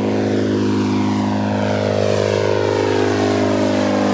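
A single-engine propeller light aircraft, the Quick Air Model 1 homebuilt bush plane, flying low overhead. Its steady engine-and-propeller drone carries a sweeping, phasing tone as it passes.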